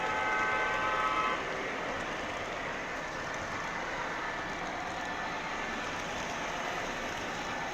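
O-gauge model freight train running on its track with a steady rolling rumble. A held chord of several tones sounds at the start and cuts off about a second and a half in.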